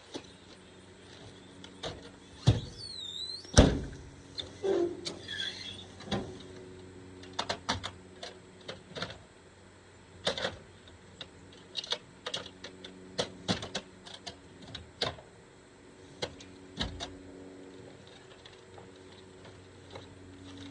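A string of irregular knocks and clicks, the loudest two close together about two and a half to three and a half seconds in, with a short high squeak around three seconds, over a faint steady hum.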